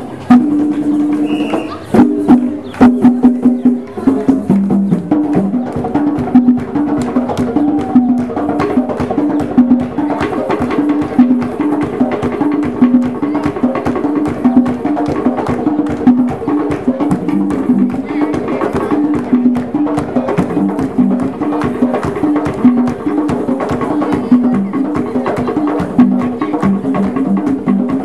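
East African hand drums playing a fast, steady rhythm, with a crowd clapping along.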